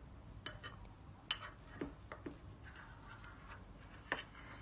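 Kitchen knife cutting through a baked chocolate cake in a glass baking dish, the blade clicking faintly against the glass a few times at irregular intervals.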